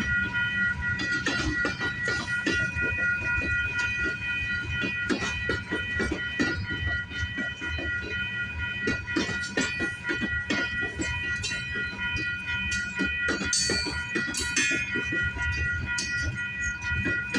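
Freight train cars rolling past, their wheels clattering and knocking over the rails in an uneven rhythm with a low rumble underneath. Several steady high ringing tones sound over the clatter.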